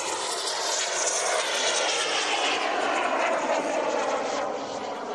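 Electric RC P-51 Mustang warbird in flight, its brushless motor and propeller giving a steady whine at full throttle, a little louder in the middle as the plane passes. On the stock 4S battery setup the model is underpowered.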